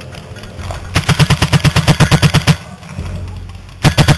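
Paintball marker firing rapidly, a burst of about fifteen shots at roughly ten a second, then a second short burst of a few shots near the end.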